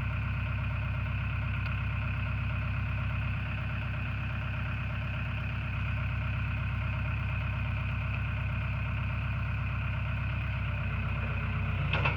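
Excavator diesel engine idling steadily, with a short louder noise near the end.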